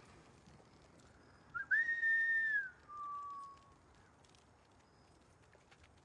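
A person whistling two notes, starting about a second and a half in: a high note held for about a second that bends down at its end, then a lower, shorter note that sinks slightly.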